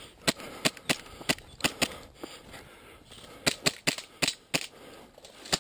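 Airsoft guns firing single shots: about a dozen sharp cracks at irregular intervals, some in quick pairs.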